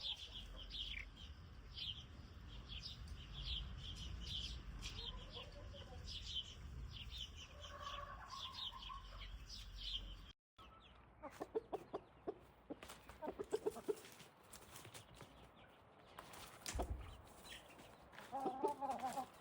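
Chickens in a free-range yard: rapid high-pitched chirping with occasional lower clucks, broken off by an abrupt cut about halfway through; after it come bursts of hen clucking and a louder call near the end.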